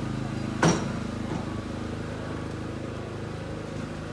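A vehicle engine running steadily close by, with a single sharp knock about half a second in.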